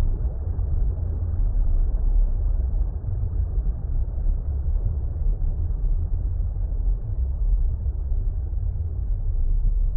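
Steady, deep, muffled water rumble like the sound heard underwater, heaviest in the low end with nothing bright on top.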